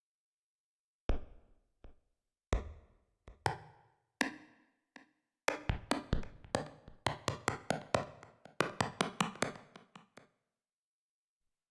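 Dave Smith Instruments Prophet 6 analog synthesizer playing a percussive preset dry, without external effects: short struck notes that die away quickly. A few spaced notes come first, then a quicker run of about four notes a second up and down the keys, stopping shortly before the end.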